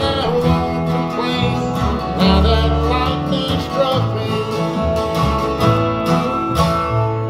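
A small country band plays the closing bars of a song: strummed acoustic guitars over walking upright-bass notes.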